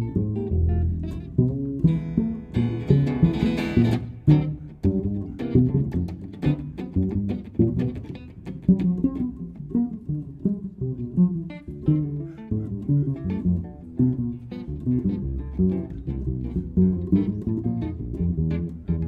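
Jazz duo of upright double bass and amplified archtop electric guitar playing a busy improvised line of plucked notes, with a brighter, fuller flurry about two to four seconds in.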